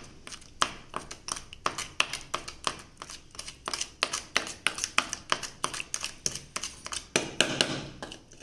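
Metal spoon stirring a thick fuller's earth (multani mitti) and camphor paste in a small stainless steel bowl, clicking and scraping against the steel about three or four times a second. About seven seconds in there is a longer, louder scrape as a steel tumbler is tipped over the bowl.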